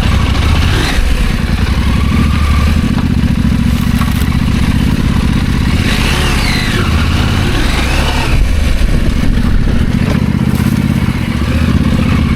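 Husqvarna Norden 901's parallel-twin engine running at low, fairly steady revs while riding a dirt trail, with some clatter.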